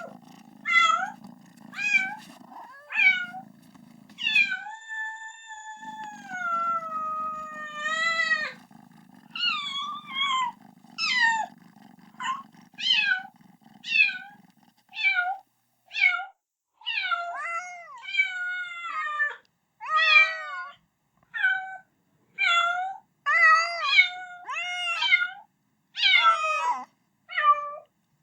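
Kitten meowing over and over, calling for its mother: short high meows about one a second, with one long drawn-out meow falling in pitch about five seconds in.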